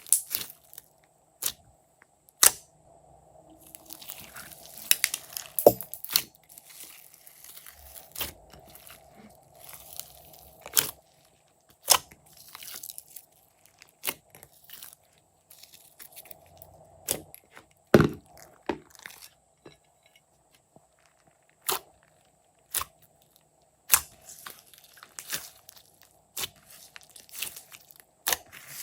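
Hands squishing and pressing glossy slime, giving sharp sticky pops and clicks at irregular moments, roughly one every second or two.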